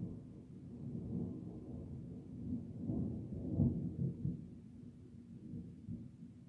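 Distant thunder rumbling low and long, swelling to a peak about three to four seconds in, then fading.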